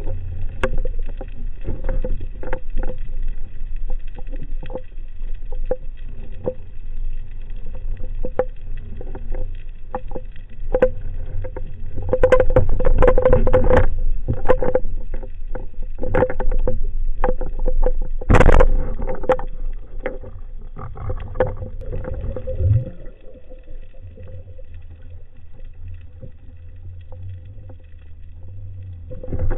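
Underwater sound picked up by a spearfisher's camera: low water rumble with a run of sharp clicks, roughly one a second, growing denser and louder about halfway through, then one strong knock and a quieter stretch near the end.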